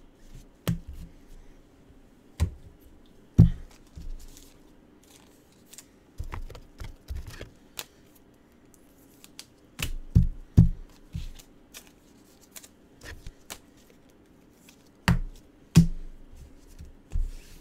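Trading cards and card packs being handled on a table: irregular clicks, taps and dull thuds, bunched a few seconds in, around ten seconds in and near the end.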